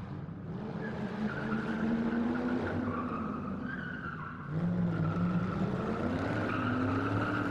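A car engine running, with tyres squealing over it.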